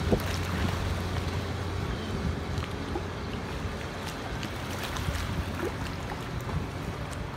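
Small boat outboard motor running steadily at a distance, a low even hum, with wind on the microphone and small waves lapping.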